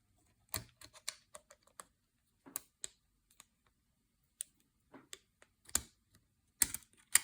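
Irregular light clicks and taps of the Umarex TP50's valve chamber and plastic inner shell being handled and pushed together, with a few sharper knocks near the end as the valve chamber is pressed home.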